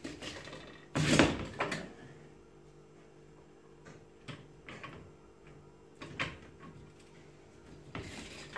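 Homemade steel lever-press potato slicer being worked: a loud sliding clunk about a second in as the press comes down, then lighter metal clicks and knocks as the mechanism and potatoes are handled.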